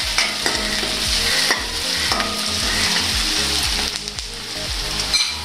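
Chopped onions sizzling steadily in hot oil in a metal kadai, with a steel spoon scraping and clinking against the pan as they are stirred during the first couple of seconds.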